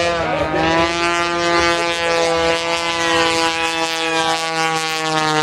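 Aerobatic airplane's engine droning steadily as it flies past, its pitch sinking slowly.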